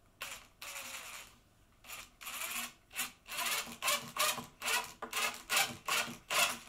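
Cordless driver sinking a long wood screw into a pine block: one steady run about a fraction of a second in, then short bursts, about three a second, as the screw is driven home.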